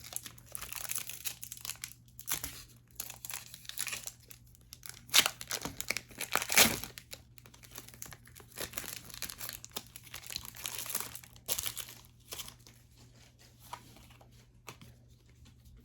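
Plastic packaging crinkling and rustling as trading cards are handled, with irregular crackles and two sharper ones about five and six and a half seconds in.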